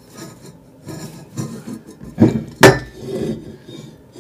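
Cooking pots being handled and knocked down on a surface, with two sharp knocks a little past two seconds in, the second ringing briefly like metal.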